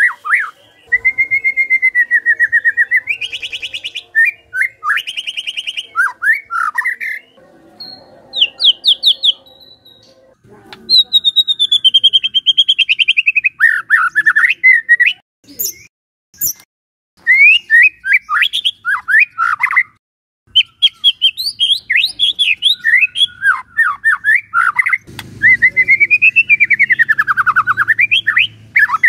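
White-rumped shama in full song: loud, varied phrases of clear whistles sweeping up and down, fast trills and rapid runs of repeated notes, broken by a few short pauses.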